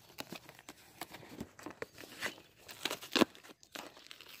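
Cardboard Priority Mail shipping box and its tape being pried and torn open: a run of irregular crinkles, scrapes and tears, with the sharpest tearing a little after three seconds in.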